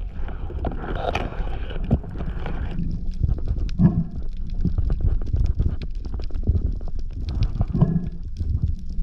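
Underwater sound picked up through a waterproof camera housing: a steady low water rumble with a constant crackle of clicks. There is a hissy rush in the first few seconds and two short tonal sounds about four and eight seconds in.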